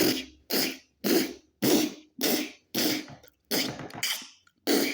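A man making rhythmic mouth sound effects of pickaxes striking stone: a quick run of short, hissing 'chh' bursts, about two a second.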